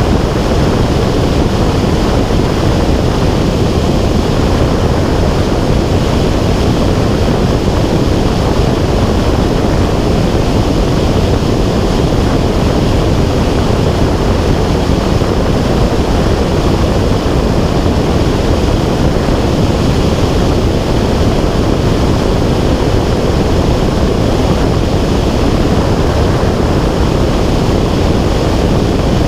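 Loud, steady wind noise buffeting the microphone in flight, an even low rushing without any change or break.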